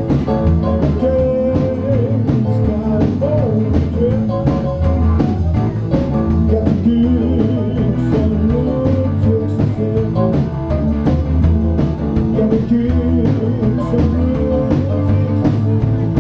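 Live blues-rock band playing an instrumental passage: an electric guitar lead with bent notes over bass guitar and a drum kit keeping a steady beat.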